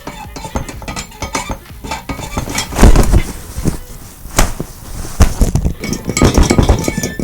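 Foley clatter of dishes and cutlery: repeated clinks and knocks, with a loud hit about three seconds in and denser clattering toward the end.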